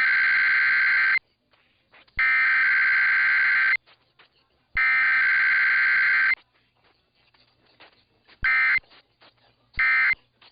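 Emergency Alert System SAME data tones: three loud, raspy bursts of about a second and a half each, a second apart, carrying the coded header of a weekly test. Near the end come two much shorter bursts of the same tones, the pattern of the end-of-message code.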